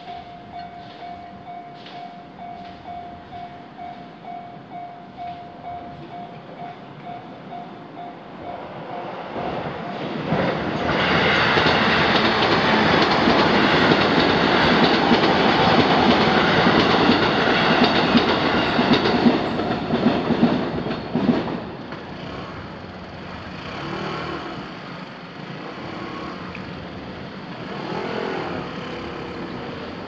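Level crossing alarm ringing steadily, then a JR Yokohama Line E233-series electric commuter train passes over the crossing with its wheels clattering on the rails. The train is loudest for about ten seconds in the middle and then fades.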